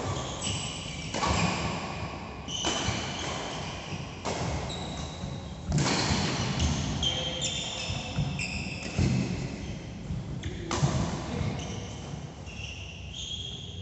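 Badminton rackets striking a shuttlecock in a doubles rally, sharp hits every second or two, with short high squeaks of shoes on the synthetic court mat between them.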